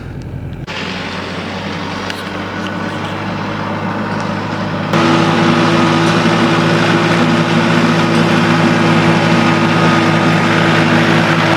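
Vehicle engine and road noise while driving: a steady hum with rushing noise that steps up louder about five seconds in and then holds.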